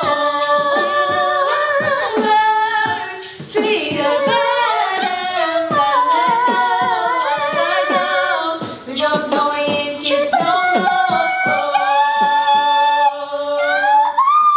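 A cappella singing with no instrumental backing: a boy's voice out front, with other voices joining. Near the end the singing slides up into a long held high note.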